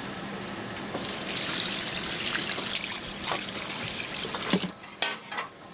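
Liquid pouring and splashing, with a few sharp knocks near the end.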